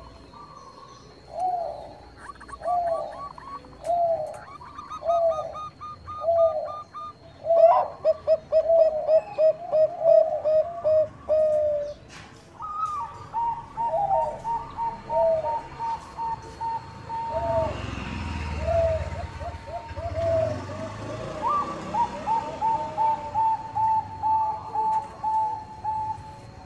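Perkutut bangkok zebra doves cooing: spaced coos about once a second, then quick runs of rapid notes, with a second, higher series of notes overlapping in the second half. A low rumble passes about two-thirds of the way through.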